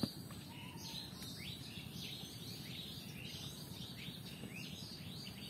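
Birds chirping: a string of short falling chirps, about two or three a second, over steady low outdoor background noise. One brief knock at the very start.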